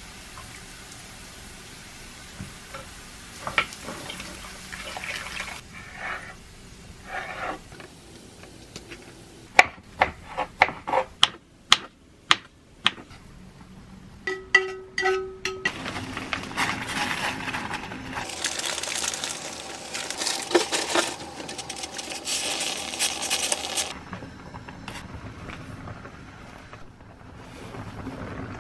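Kitchen sounds in sequence: soft handling, then a fast run of sharp knife strikes on a wooden cutting board as egg strips are cut, a brief metallic ring, and then a loud, steady hiss lasting several seconds, like water at a rolling boil.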